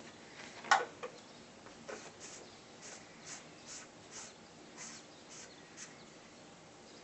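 Ragdoll kittens' paws and claws scratching and rustling on satin bedding as they play. A sharp scratch comes just under a second in, then soft, high rustles about twice a second.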